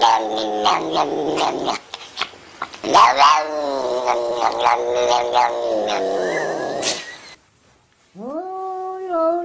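Tortoiseshell cat yowling in long drawn-out cries that waver and fall in pitch, with a short pause about two seconds in. After a brief silence about eight seconds in, a grey Scottish Fold cat gives a long meow that rises and then holds with a slight warble.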